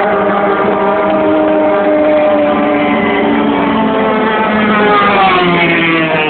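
Motorboat engine running hard over the water, its note drifting slowly lower and then dropping more steeply near the end.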